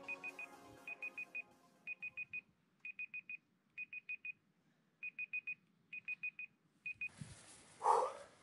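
Electronic timer alarm beeping in quick groups of four short, high beeps, about one group a second, signalling the end of the workout's final timed interval. Background music fades out in the first two seconds. The beeping cuts off about seven seconds in, and a short breathy blow of air follows.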